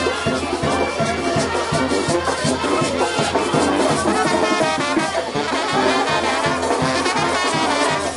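Brass band playing dance music, the horns carried over a steady beat.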